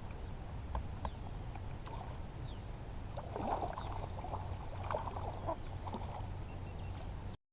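Small knocks and water sounds around a kayak over a steady low rumble; the sound cuts off abruptly near the end.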